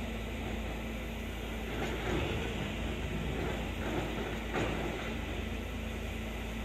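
Volvo crawler excavator's diesel engine running steadily under load, with a couple of faint knocks of concrete rubble as the bucket works the debris pile.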